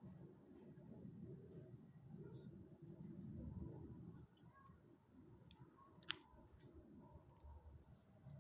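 Faint, steady high-pitched trill of crickets at night, over a low rumble, with a single sharp click about six seconds in.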